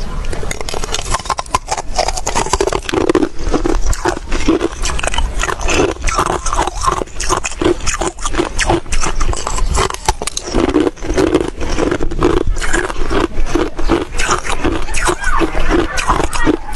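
Close-miked chewing of hard chunks of freezer frost: dense, crackly crunches in quick succession, with wet mouth noise between bites.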